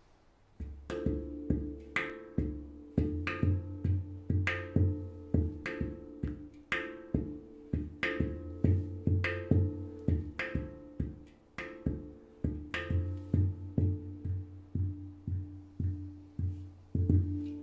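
Steel Monkey Mystic 7 handpan, tuned D3 with A3, A#3, D4, E4, F4, A4 and C5, played with the fingers. Sharp strikes come in a steady rhythmic run of about two to three a second, starting about half a second in. Each note rings on under the next, with a deep low hum beneath the melody, and the last notes ring out near the end.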